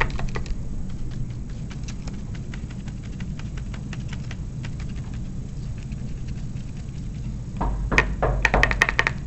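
Sponge dabbing tempera paint onto paper around the edges of a paper stencil: a run of light, quick taps, growing louder and closer together near the end.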